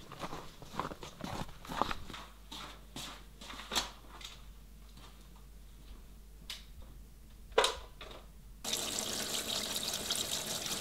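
Water dripping and splashing in quick irregular drops, then a steady stream of running water for the last two seconds.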